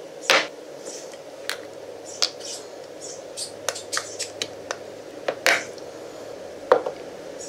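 Sharp plastic clicks and snaps, about a dozen at irregular intervals, as the plastic cap is pulled off a metal powder tin and its plastic pour spout is pried up and pulled out. A steady faint hum runs underneath.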